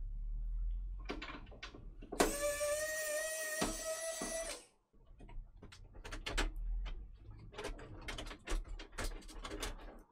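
Small electric screwdriver whirring for about two and a half seconds, its pitch rising slightly, then a string of light clicks and taps as small metal parts are handled on the motherboard.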